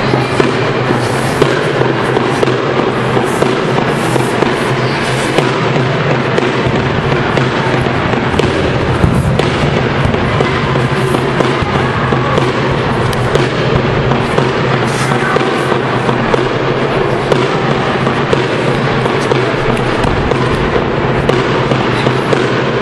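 Loud, steady background music, dense and distorted, with frequent sharp clicks throughout.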